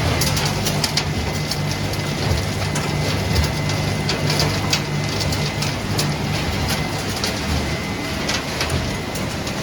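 Refrigerator recycling line machinery running: a steady low hum with a continuous clatter of small pieces rattling through it.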